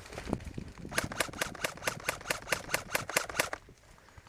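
Airsoft rifle firing a quick string of single shots, about five a second, sharp clicking pops that start about a second in and stop about a second before the end.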